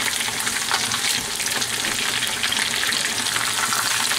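Breaded chicken thighs frying in hot oil in a pan: a steady, dense sizzle with fine crackling.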